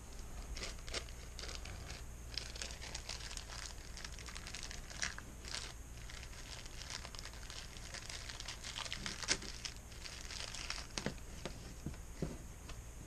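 Irregular rustling and light clicks of objects being handled, over a faint low steady hum.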